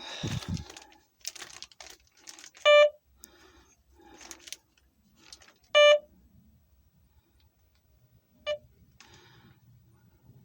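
Metal detector giving three short, low-pitched beeps as its coil passes over buried metal: two loud beeps about three seconds apart, then a shorter, fainter one. Rustling and scuffing from the detector sweeping over debris lies between the beeps.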